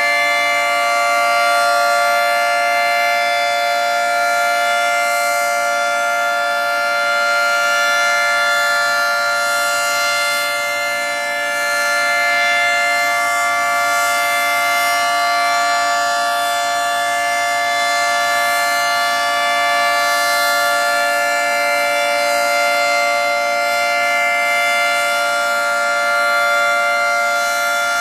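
Federal Signal 2T22 dual-tone outdoor warning siren sounding its steady alert on a test at full speed, holding a two-note chord with no rise or fall in pitch. The loudness swells and fades gently every six seconds or so.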